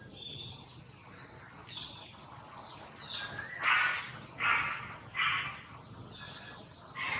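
A series of short animal calls or barks: a few scattered ones, and three in quick succession about three-quarters of a second apart in the middle.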